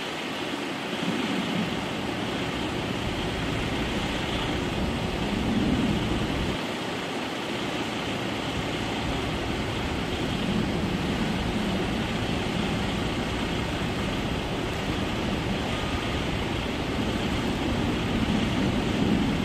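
Twin-engine widebody jet airliner on final approach with its landing gear down, its engines a steady rushing hum that swells slightly and grows a little louder near the end as it comes closer.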